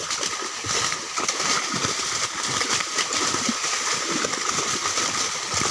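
Many fish thrashing in shallow water crowded inside a fishing net drawn in to the bank: a dense, irregular run of splashes and slaps.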